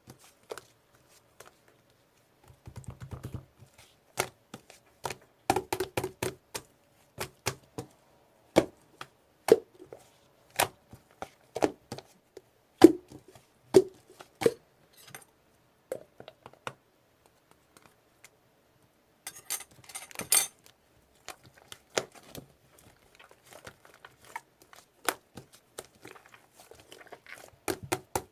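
Mixed slime being squeezed and kneaded by hand, giving a string of sharp clicks and pops, with a denser crackly stretch about twenty seconds in.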